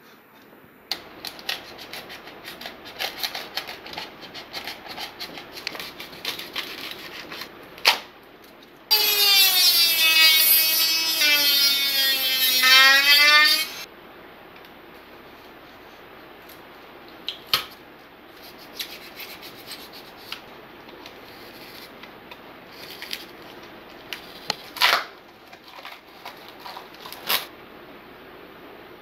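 Hand scraping and rubbing on a fibreglass cowl shell and its foam plug, with scattered clicks and a few sharp knocks, as a knife blade scrapes the foam out from inside the shell. In the middle a loud motor whine runs for about five seconds, its pitch falling, then rising sharply before it cuts off.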